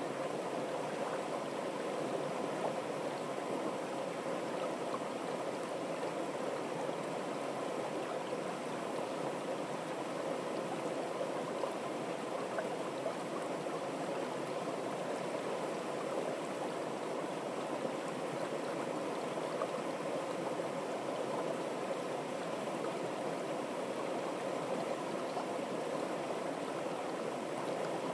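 Water pouring down a small stepped cascade into a churning pool, a steady, even rush of falling and splashing water.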